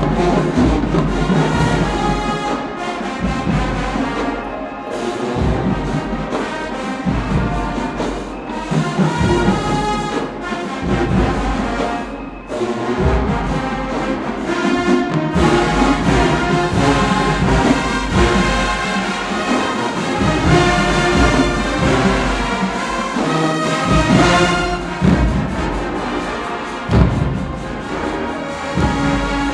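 HBCU marching band playing loudly: a full brass section with low brass and drums, carrying a continuous piece throughout.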